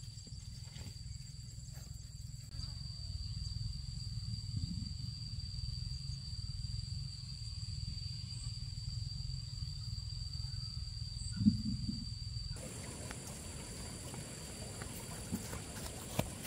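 Insects trilling steadily at a high pitch over a low outdoor rumble, with a single thump about eleven and a half seconds in.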